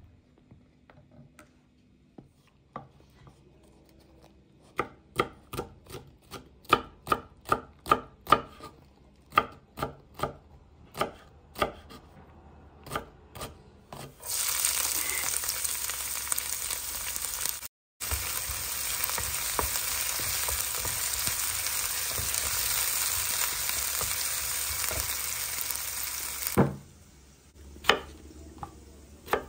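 A kitchen knife chopping long green peppers on a wooden cutting board: a run of sharp taps, about two or three a second. Then a loud steady hiss for about twelve seconds, which cuts off suddenly with a knock. A few more knife strokes go into an onion near the end.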